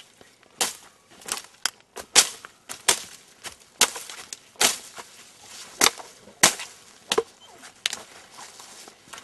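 A run of sharp cracking strikes, a dozen or so at uneven intervals of about half a second to a second, from something swung by hand.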